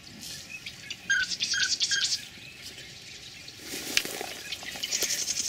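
A flock of ducks passing low overhead, their wings whistling in a rapid pulsed hiss about a second in and again near the end, with three short high notes early on.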